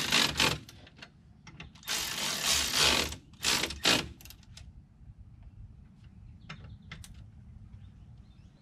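Hand ratchet wrench clicking in quick runs as bolts are run in: three runs in the first four seconds, then a few faint clicks.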